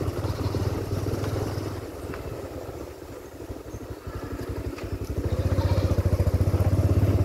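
Motorcycle engine running while riding, with a low, even exhaust pulse. It eases off about two seconds in and picks up again after about five seconds.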